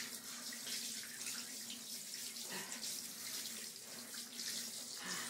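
Handheld shower running steadily, spraying water onto a small wet dog in a bathtub.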